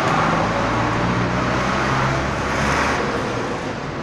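Road traffic passing on a highway: a motor vehicle's engine drones by under a steady rush of tyre and road noise, easing off slightly near the end.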